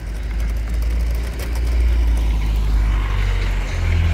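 A van's engine running close by, a steady low rumble that grows louder over the first two seconds.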